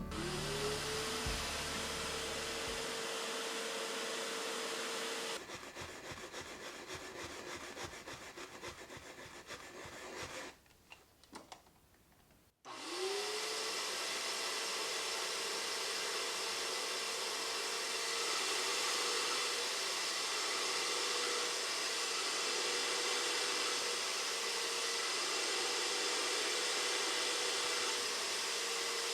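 Bissell SpotClean ProHeat portable wet cleaner's motor spinning up and running steadily. It cuts out after about five seconds, leaving a quieter stretch with a few clicks, then spins up again a little past the middle and runs on.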